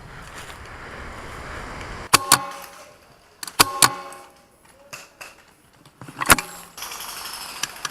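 Airsoft guns firing: sharp cracks with a short metallic ring. Two shots come in quick succession about two seconds in, two more about a second and a half later, and a single one a little after six seconds, after a soft rustle at the start.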